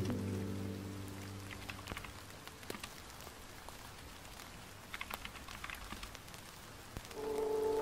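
Soft, steady rain-like hiss with scattered light clicks and taps. A held music chord fades out at the start and calm music comes back in near the end.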